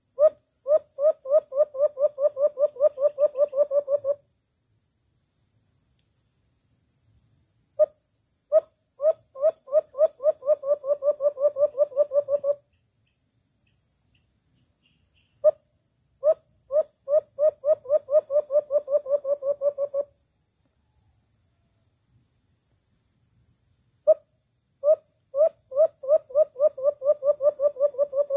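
Low hooting dove call, the luring call for white-eared brown doves: each bout a single note, a short pause, then a run of about twenty notes that speeds up, repeated four times. A steady high insect whine runs underneath.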